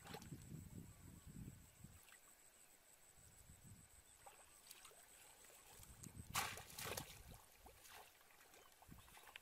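Faint sloshing of shallow pond water as a person wades and pushes a bamboo plunge-basket fish trap down into it, with two sharper splashes about six and seven seconds in.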